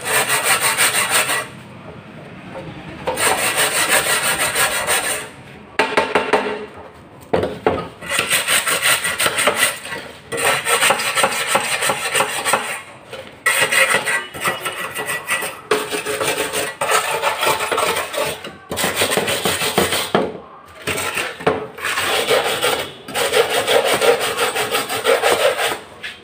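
Repeated scraping strokes on the metal parts of a neglected gas stove as they are worked clean. Each stroke lasts about one to two seconds, with short pauses between them.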